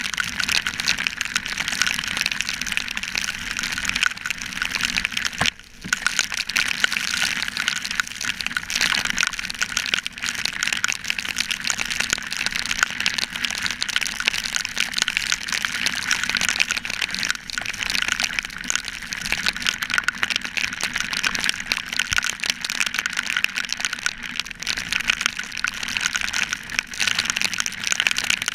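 Heavy rain and road spray hitting the camera's waterproof housing on a moving motorcycle: a dense, steady crackling hiss. A low steady drone from the KTM Duke 200's single-cylinder engine runs underneath. The sound drops out briefly about five and a half seconds in.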